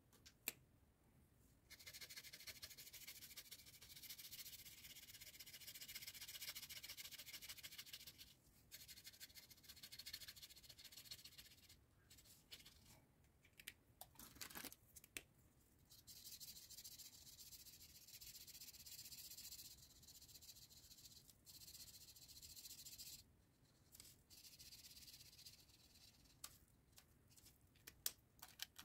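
Faint felt-tip marker scratching back and forth on paper as a shape is coloured in, in long runs of strokes broken by short pauses, with a few sharp clicks.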